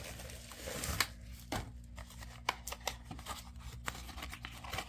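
A small cardboard box being handled and opened by hand: a soft scraping hiss, then a scattered run of light clicks and taps.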